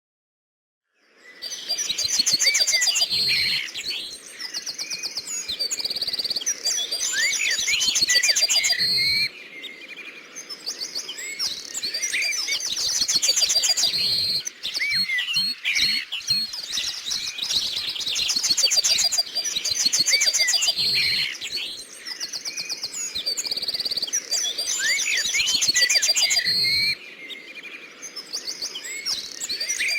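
Several songbirds chirping and singing together: a dense chorus of high chirps, rapid trills and short whistles that begins about a second in.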